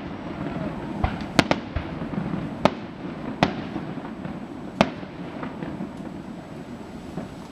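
Fireworks shells bursting overhead: a series of sharp, irregular bangs, the loudest about one and a half, two and a half, three and a half and five seconds in. The bursts thin out and stop in the last two seconds.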